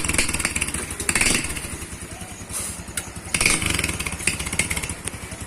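Honda Pop 110i motorcycle's small single-cylinder four-stroke engine running through an aftermarket tin ('lata') exhaust with its baffle fitted. The throttle is blipped about three times, rising and falling between blips, and the engine settles toward idle near the end.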